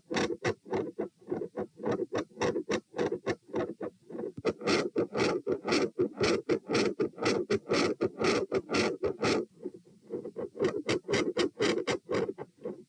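Heartbeat heard through a stethoscope on the chest: a steady run of beats, with a rushing murmur filling the gaps between them through the middle stretch that eases again near the end.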